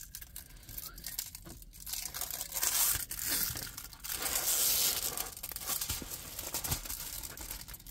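Crinkling and rustling of a diamond painting canvas and its plastic cover film as they are handled, in irregular stretches that swell about three and five seconds in.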